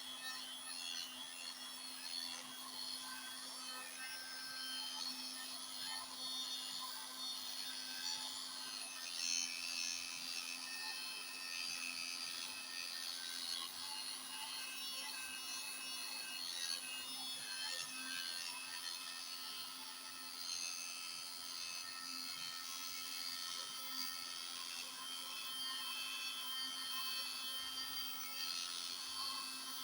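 Electric heat gun running steadily, its fan blowing hot air with a constant hum and hiss, worked over faded, whitened motorcycle plastic to restore its colour.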